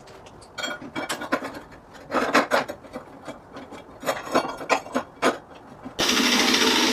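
Hand wire brush scrubbed across a flux-core weld in quick, irregular scraping strokes, clearing off weld spatter. About six seconds in, a power wire wheel starts abruptly and runs steadily.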